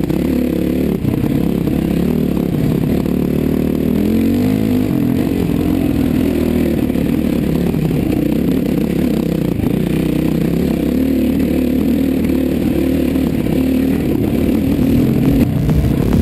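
Yamaha YZ450F four-stroke single-cylinder dirt bike engine running under a varying throttle on a trail ride, its pitch rising and falling with the revs. It is heard close up from a helmet-mounted camera.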